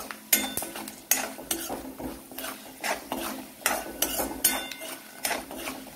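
Metal spoon stirring peanuts, coconut and roasted gram in a metal kadai: sharp scrapes and clinks of spoon on pan, about two to three a second.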